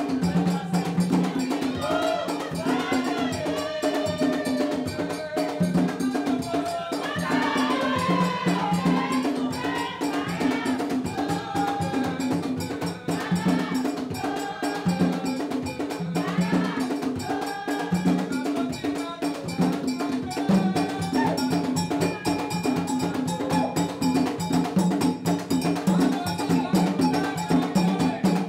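Haitian vodou ceremonial music: hand drums playing a steady, driving rhythm with a struck metal bell ringing over it, and voices singing.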